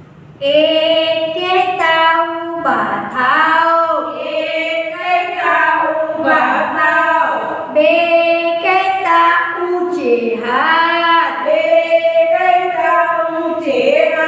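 Women's voices singing a slow, melodic chant in unison, with long held notes and gliding pitch between phrases.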